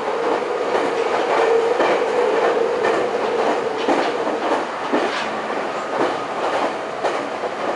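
Meitetsu Gamagori Line electric train running at speed, heard from inside the passenger car: steady rolling noise with a string of clacks as the wheels pass rail joints. A steady hum fades out about three seconds in.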